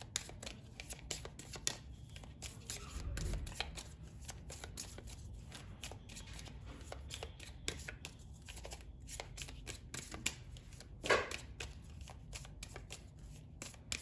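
Gaia Oracle cards being shuffled by hand: a steady run of small clicks and rustles of card on card, with one louder brief sound about eleven seconds in.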